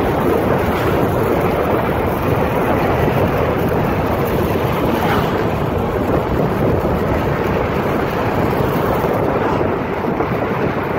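Steady wind rush buffeting the microphone on a Honda motor scooter riding at about 40 km/h, with the scooter's running and tyre noise blended in underneath.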